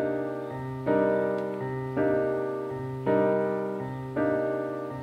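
Background music: a piano playing slow, evenly paced chords, a new chord about every second, each one fading away before the next.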